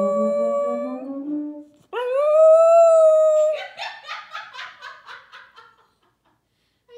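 A baritone horn plays a slowly rising line of low notes while a dog howls along on a higher held pitch. About two seconds in, the brass stops and the dog gives a loud rising howl on its own, which breaks into a string of short choppy yips and fades out.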